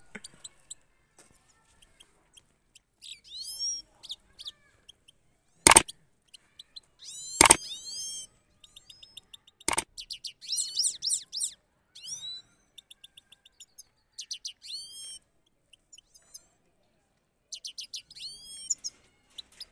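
Caged goldfinches singing in bursts of high twittering phrases with fast rolling trills. Three loud, sharp clicks come between about six and ten seconds in.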